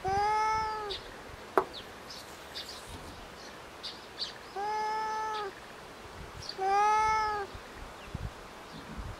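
A cat meowing three times, each meow a drawn-out call just under a second long with a slight rise and fall in pitch. A single sharp click comes between the first two meows, and faint short high chirps sound now and then.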